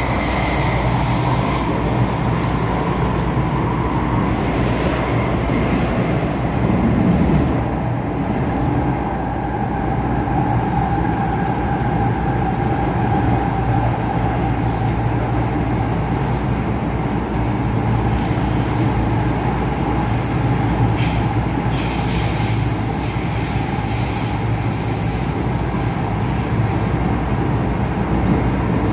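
MTR M-Train running through a tunnel, heard from inside the car: a steady rumble of wheels, motors and tunnel noise. From a little past halfway, high-pitched wheel squeal comes and goes.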